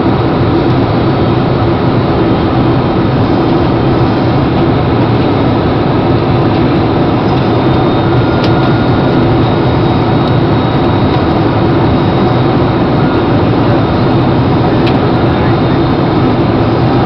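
Steady airliner cabin noise in flight: the jet engines and rushing air, heard from a seat by the window, with a faint click or two.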